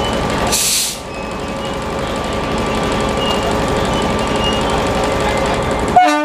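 WAP7 electric locomotive standing close by with its machinery running, a steady hum and whine. A short hiss of air about half a second in, and near the end a horn toot that starts abruptly.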